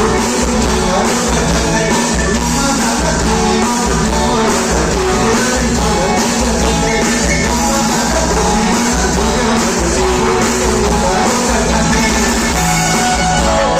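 Live rock band playing loud through a PA, with a steady kick-drum beat under guitars and a singing voice.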